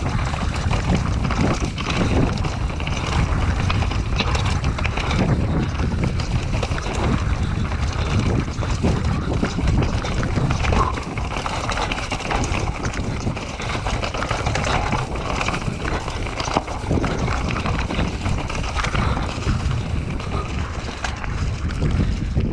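Cube Stereo 150 full-suspension mountain bike riding down a rocky dirt trail: tyres rolling over stones and dirt, with a constant clatter of small knocks and rattles from the bike. Wind rushes on the microphone.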